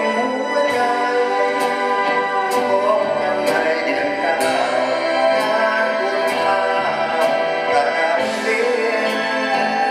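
Live orchestra playing an Isan-style Thai song, with a light beat about once a second.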